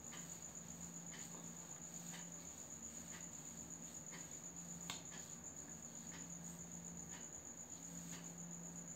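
Faint, steady high-pitched trill over a low hum, with a few soft taps as hands pat moisturizing cream into the face.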